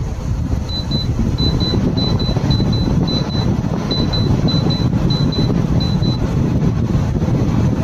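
A 12,000 BTU portable air conditioner runs with a steady fan noise. Over the first six seconds there are about nine quick, high double beeps from its controls as the settings are stepped through.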